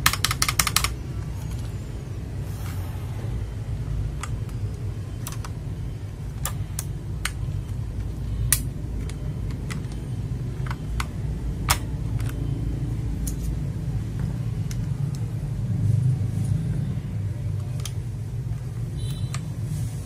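Fast typing on a mechanical keyboard for about the first second, then only scattered single key clicks over a low steady rumble.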